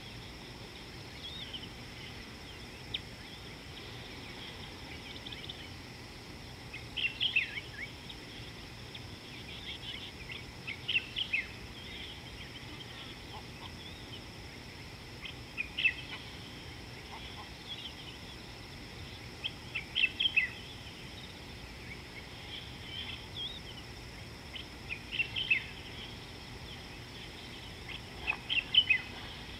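Birds calling in short clusters of chirps every few seconds over a steady high hiss.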